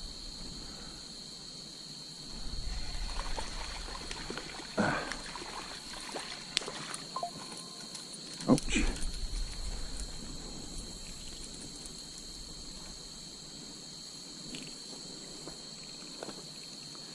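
Insects calling in a steady, unbroken high-pitched drone, with a few short knocks and low rumbles of handling noise about five and eight and a half seconds in.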